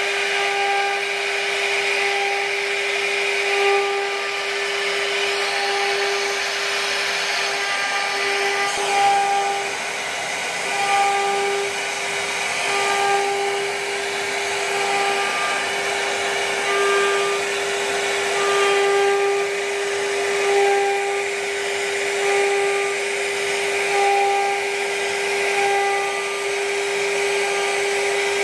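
CNC router's HSD spindle running with a steady whine while its bit carves grooves into a wooden panel. A higher tone comes and goes every second or two as the machine moves the cutter along its path.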